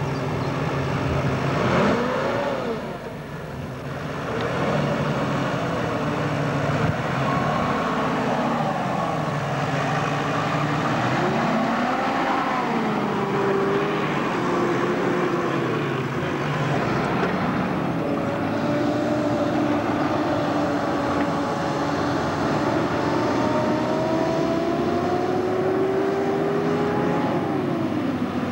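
Four-wheel-drive vehicle engines revving under load on a muddy off-road course, the engine pitch rising and falling over and over, with a long slow climb in pitch in the second half.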